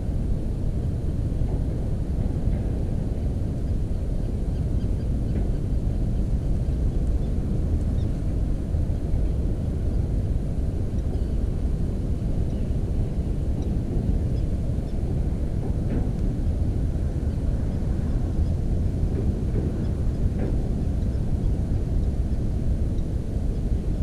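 Steady low rumbling noise with a few faint, short, higher sounds, one about two-thirds of the way in and one later on.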